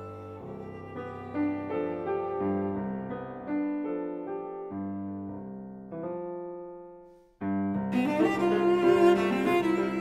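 Cello and piano chamber music: the piano plays soft, slowing chords that fade almost to nothing about seven seconds in. The cello and piano then come back in at tempo, noticeably louder.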